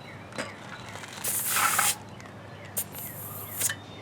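Short bursts of air hissing from a bike inner tube's valve as a tire pressure gauge is pressed onto it to take a reading: one hiss lasting just over half a second about a second in, then a brief one and a second, longer hiss near the end.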